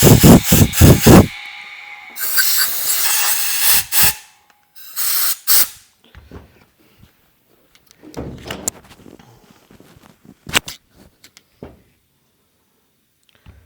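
Compressed-air blow gun blowing through the freshly ultrasonic-cleaned carburetor's jets and passages to clear them: a quick run of short, loud blasts, then two longer hisses, followed by small clicks and knocks of the parts being handled.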